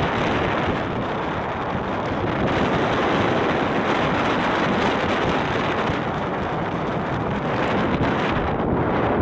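Steady wind rushing and buffeting the microphone on the open deck of a moving cruise boat.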